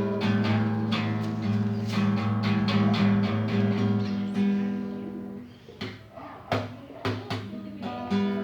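Acoustic guitar being strummed: ringing chords at first, then from about five seconds in lighter, separate strums with short pauses between them.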